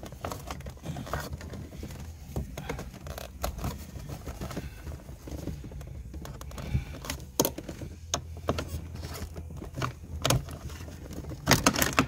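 Scattered clicks, taps and rattles from a 1986 Corvette's automatic transmission shifter cable and its metal linkage being yanked and worked by hand to free the cable for removal, with a burst of louder clicks near the end. A low steady hum runs underneath.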